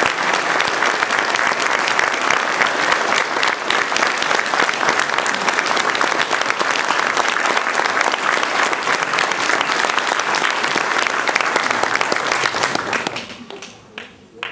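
Audience applauding: dense, steady clapping that dies away over the last second and a half, leaving a few last single claps.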